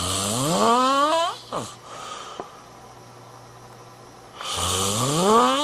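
Snoring: a breathy, whistling snore whose pitch climbs steadily for over a second, then a brief falling squeak. A second, similar snore begins near the end.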